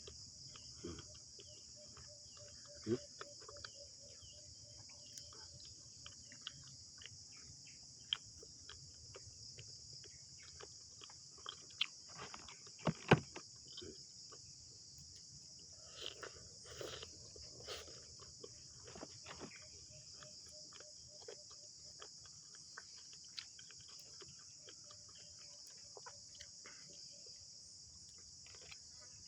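Steady high-pitched chorus of crickets and other insects, with scattered small clicks and a few sharper knocks from eating and handling food, the loudest knock about halfway through.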